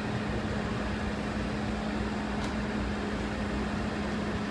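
Steady mechanical drone with a constant low hum, from the diesel power unit of the heavy-haul self-propelled modular transporter carrying the ship onto the barge.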